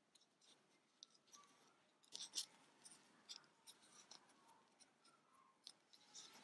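Faint rustling and light clicks of a metal crochet hook drawing cotton yarn through stitches, with a brief louder scratchy patch about two seconds in.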